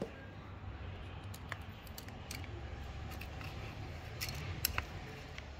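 A few light metallic clicks and scrapes as a small hand tool works the steel return spring of a Chevrolet Onix 1.0 three-cylinder's variable valve timing cam pulley, compressing the spring to seat it on its pins. A low steady hum runs underneath.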